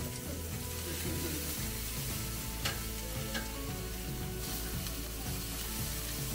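Meat sizzling on a charcoal grill, with a couple of sharp clicks from metal tongs against the grate as the pieces are turned.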